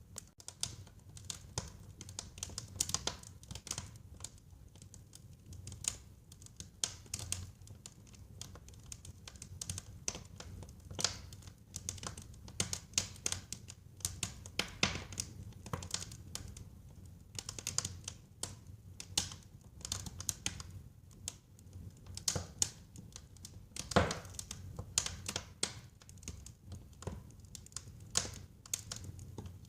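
Wood fire in a fireplace crackling: irregular sharp pops and snaps over a steady low rumble of the flames, with one louder pop about 24 seconds in.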